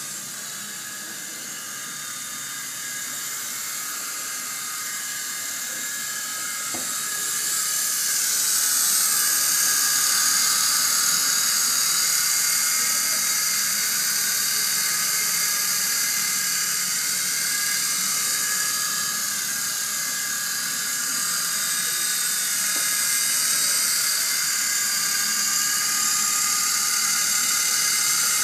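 Gyro U6 remote-controlled toy helicopter's electric motors whining and rotor blades whirring steadily in flight. It gets louder about eight seconds in as the helicopter comes close.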